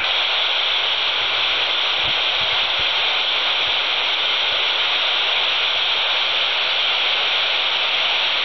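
Steady static hiss from a handheld VHF FM radio's speaker, the Quansheng TG-UV2 tuned to the ISS frequency of 145.800 MHz: the open receiver's noise when no voice is coming through.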